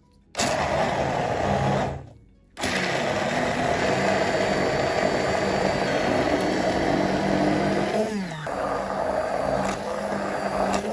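Stainless-steel immersion blender running in a glass bowl, puréeing red lentils with eggs and cheese into a batter. It starts, cuts out for a moment about two seconds in, then runs on steadily, its motor note dipping briefly about eight seconds in.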